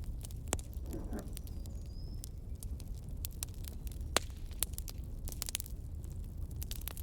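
Wood fire crackling: irregular sharp pops over a low steady rumble, with a faint high whistle about two seconds in.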